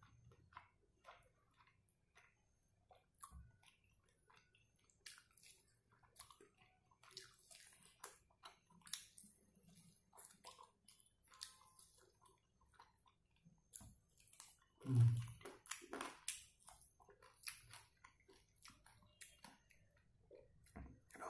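A person chewing and biting into a fried pepper chicken leg, pulling the meat off the bone, with many irregular wet mouth clicks and smacks. One louder, deeper thump about fifteen seconds in.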